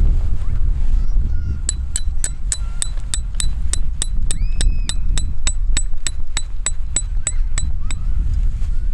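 Wind buffeting the microphone, with a fast, even ticking of about four sharp clicks a second over it, starting near two seconds in and stopping about a second before the end.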